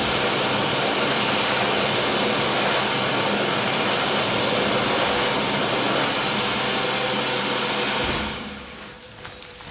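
Electric hand dryer blowing steadily with a motor hum, then winding down and stopping about eight seconds in; a few faint clicks and rustles follow.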